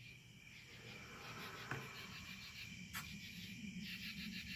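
A chorus of night insects chirping in fast, even pulses, with a steady high tone beneath. Two sharp clicks come through, about two and three seconds in.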